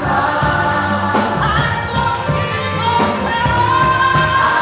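Gospel choir singing with band accompaniment over a steady beat, the voices holding long notes.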